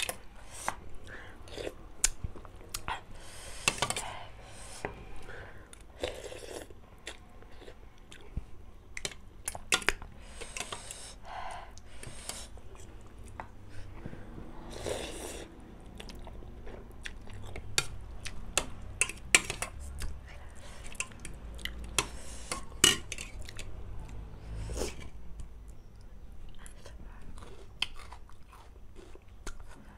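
Close-miked chewing of instant noodles, with many short sharp clicks and a few brief noisy sounds scattered through.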